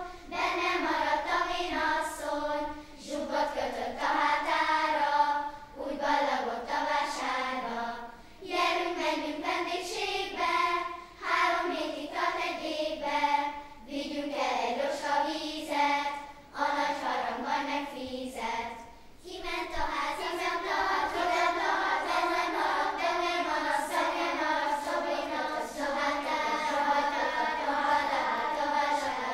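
Children's choir singing a Hungarian folk song, in short phrases with brief breaks between them.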